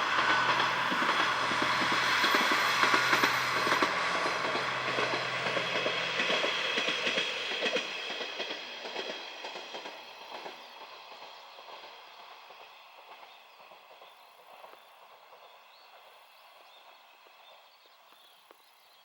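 Train going by close with wheels clattering over the rails and a low motor hum, then fading away steadily as it recedes until only a faint trace is left.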